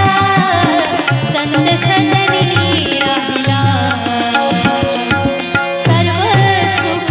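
Devotional Marathi abhang music to Vitthal: repeated hand-drum beats under a held melody that glides in pitch.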